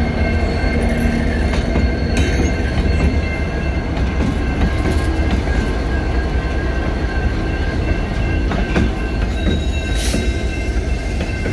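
Diesel locomotives of a freight train passing close by: a loud, deep engine rumble with wheels running on the rails and a thin, steady high squeal from the wheels.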